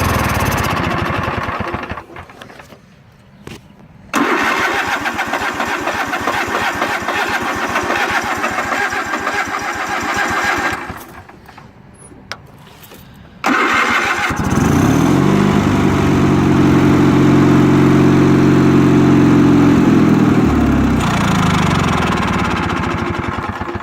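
A GMC Envoy's engine being cranked by the starter in long rapid-pulsing stretches with pauses between them. Then comes a steady tone that rises, holds for about six seconds and falls away, like the engine revved and held before easing off.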